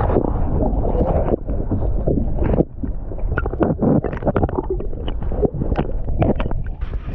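Water sloshing and splashing around a fishing kayak, with a low rumbling noise on the microphone. It is a dense steady rumble for about the first two and a half seconds, then turns into irregular short splashes.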